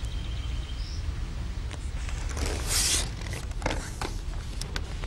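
A steady low outdoor rumble, with a short rustling swish about halfway through as the angler rises from his seat and lifts the pole, then a few light clicks near the end.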